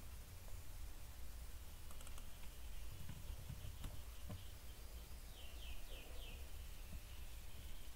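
A few scattered computer keyboard key taps over a steady low hum, with a short run of high chirps about five to six seconds in.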